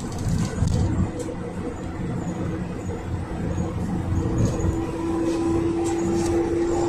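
Inside the cabin of a GAZelle Next minibus with a Cummins 2.8 engine, driving at speed: steady engine and road noise, with a whine that grows stronger about four seconds in and occasional light clicks and rattles.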